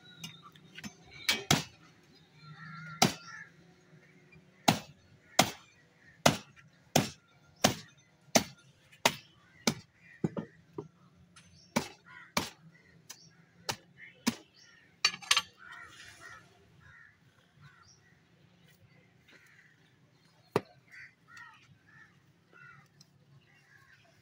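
Heavy meat cleaver chopping into a beef head: a steady series of sharp chops, about three every two seconds. The chops pause, come again in a second run, and end with one lone chop later on.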